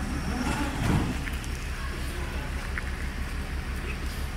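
Steady low hum of an idling vehicle engine with street noise, and one louder low swell about a second in.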